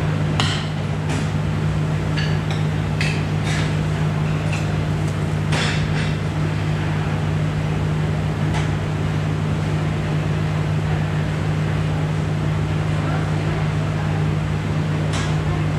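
Steady low machine hum of commercial kitchen equipment, with scattered sharp clicks and knocks, most in the first six seconds and one more near the end.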